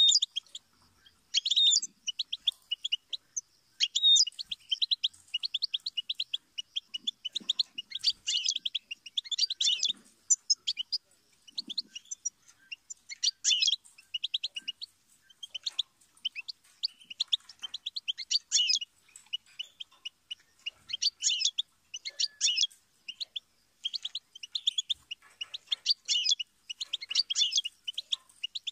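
European goldfinch singing: a fast, twittering song of rapid high chirps and trills, in phrases a few seconds long broken by short pauses.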